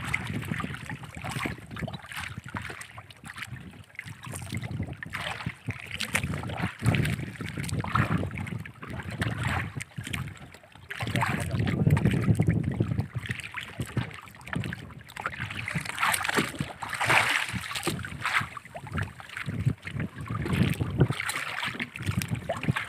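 Wind buffeting the microphone in uneven gusts, with small waves lapping and slapping against the hull of a small outrigger canoe.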